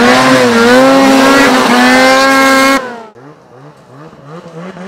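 Snowmobile engine revving hard and high, its pitch wavering, as the sled powers up a steep snow bank; it stops suddenly about three seconds in. A quieter engine then follows, rising in short quick bursts of throttle.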